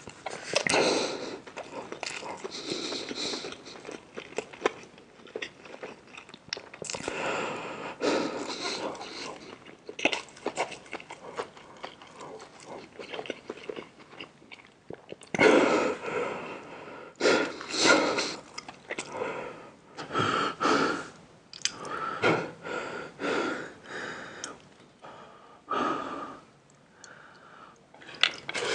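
Close-miked eating sounds: a person chewing and biting food in irregular bursts, with wheezy breaths or slurps between mouthfuls.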